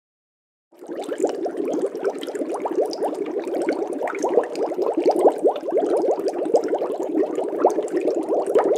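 Bubbling-water sound effect: a dense, steady stream of small bubbles that starts suddenly about a second in.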